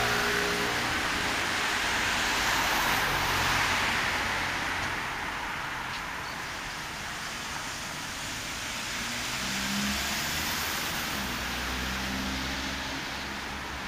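Street traffic: a steady wash of road noise from passing cars, with engines swelling past twice and slowly fading.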